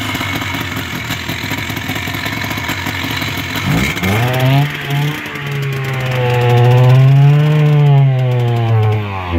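Old Ski-Doo snowmobile's Rotax two-stroke twin engine, rigged as a makeshift vacuum with a hose on its intake, running rough. About four seconds in it revs up, holds high with a wavering pitch, and the revs fall away near the end.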